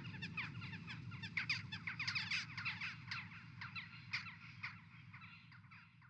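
Many birds calling in a dense run of short, quick chirps over a low steady hum, fading out near the end.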